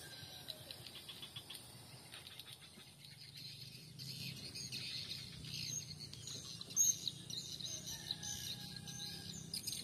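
Small birds chirping over a steady high trill of insects, with one louder, sharper chirp about seven seconds in.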